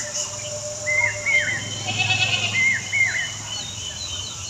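Goat mating sounds: a low, pulsing, rumbling bleat about two seconds in. Short high two-note chirps repeat about every second and a half and are the loudest thing.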